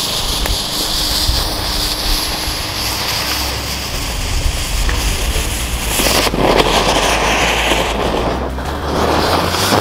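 A homemade zinc–sulfur flash-powder firework's fuse hissing and spitting sparks. About six seconds in comes a loud burst of noise as the powder flashes off, and a second burst follows near the end.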